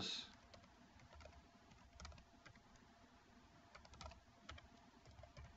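Faint, irregular keystrokes on a computer keyboard while typing into a login form, with a sharper click right at the end.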